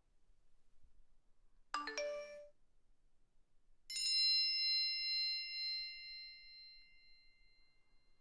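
A quick two-note chime about two seconds in, then a single bell-like ding about four seconds in that rings out slowly for about four seconds.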